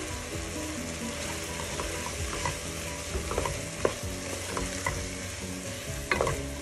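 Green peas sizzling in a pot with sautéing onion and tomato while a wooden spoon stirs them. The spoon scrapes and knocks against the pan a few times, and the loudest knock comes near the end.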